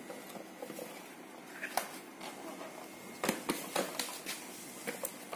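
Hard plastic body cover of a kids' electric ride-on motorbike being worked loose and lifted off its frame: scattered plastic clicks and knocks, the busiest run of them about three seconds in.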